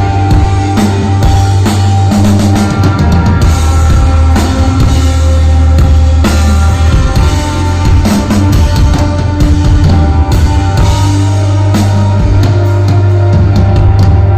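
Rock band playing live, loud, with a drum kit keeping a steady beat over a heavy held bass line and sustained guitar notes.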